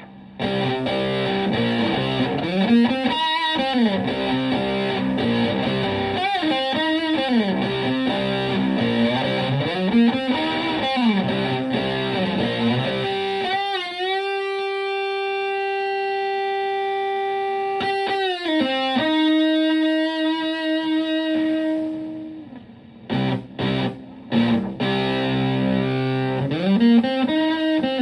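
Stratocaster electric guitar played through a Marshall Supa Fuzz prototype pedal into a Fender Twin Reverb clone amp, giving a fuzzy, distorted tone. It plays riffs with string bends, then a note bent up and held for about five seconds midway, another held note that fades, and short choppy stabs near the end.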